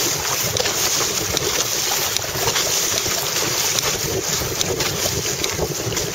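Strong wind blowing on the microphone, with the rush and splash of choppy water against the hull of a Hobie Tandem Island sailing kayak under sail.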